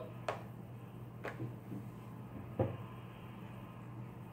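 Metal spoon knocking against a plastic mixing bowl as slime mixture is stirred: three light knocks about a second apart, the last the loudest.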